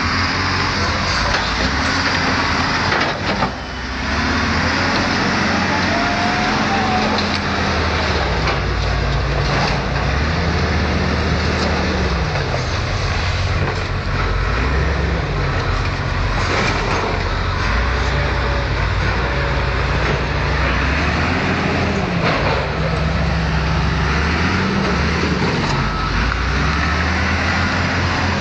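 Caterpillar wheel loader's diesel engine running under load, its pitch rising and falling again and again as the machine is revved and manoeuvred.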